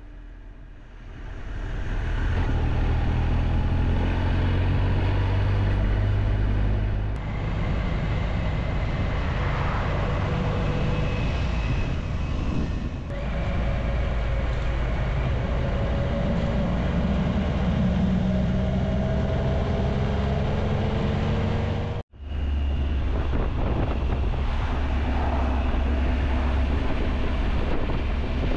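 Triumph Tiger Explorer 1200 motorcycle's three-cylinder engine running on the road, heard from on board with road and wind noise. It fades in over the first couple of seconds, and its pitch rises and falls as the bike slows and accelerates. About three-quarters of the way through the sound cuts out for a split second.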